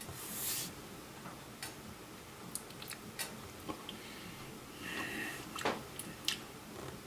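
Faint scattered clicks and taps of dishes and utensils being handled in a kitchen, with a short hiss right at the start and a brief squeak about five seconds in.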